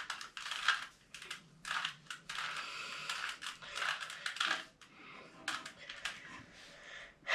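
Plastic 3x3 Rubik's cube being turned by hand: a run of quick clicking and rattling turns with short pauses between them.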